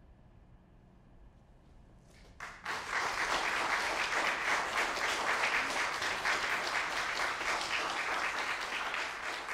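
Audience applause after a short hush. A few single claps come about two seconds in, then full clapping breaks out and carries on steadily.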